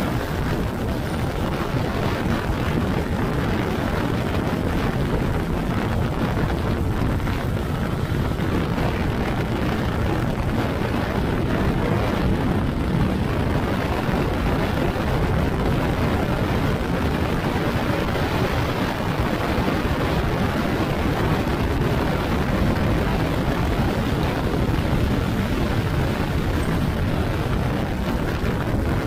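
Steady, loud noise of a vehicle on the move, with no clear engine note standing out.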